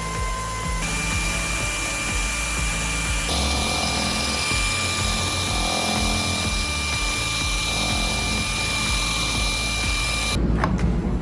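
A power tool running with a steady high whine and hiss, its tone shifting abruptly twice early on and cutting off suddenly about ten seconds in, followed by a few clicks.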